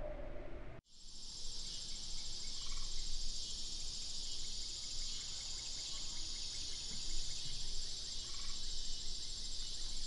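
Steady chorus of crickets chirping, a dense high-pitched trill that starts abruptly about a second in, after a brief low rumble with a steady hum.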